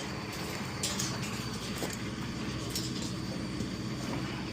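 A steady, low engine-like hum with a few short, sharp clicks or knocks.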